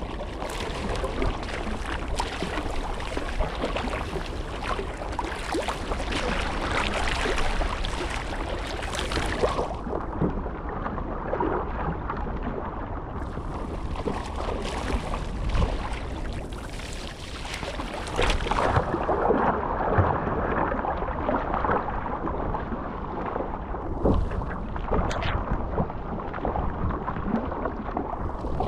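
Surfski moving through choppy open sea: water rushing and splashing along the hull and paddle blades dipping into the water stroke after stroke, with wind buffeting the microphone.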